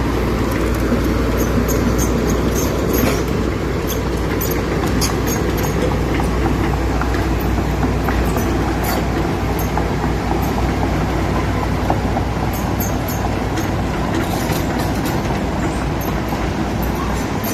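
Hydraulic excavator's diesel engine running steadily at working speed, with scattered sharp metallic clicks over the rumble.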